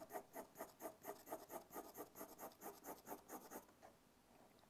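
Faint pencil strokes on drawing paper: rapid back-and-forth hatching, about four strokes a second, that stops a little before the end.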